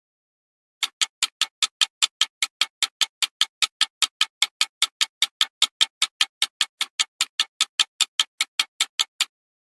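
Time-bomb countdown sound effect: fast, even, sharp ticking at about five ticks a second, starting about a second in and stopping shortly before the end.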